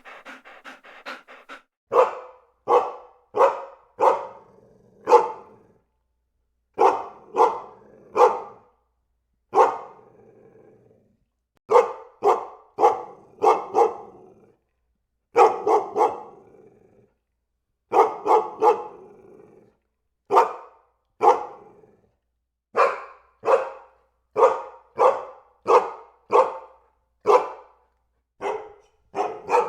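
German Shepherd barking in short, loud volleys of two to four barks with brief pauses between them, and a low growl between some of the volleys.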